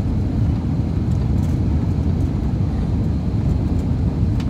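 Steady low rumble of a passenger aircraft's engines.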